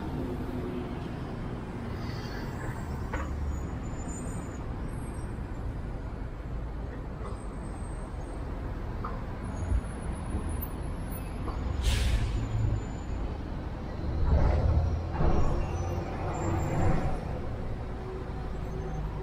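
Road traffic on a busy city avenue: a steady low rumble of engines and tyres. About twelve seconds in comes a short, sharp hiss, and a couple of seconds later heavier vehicles pass by louder.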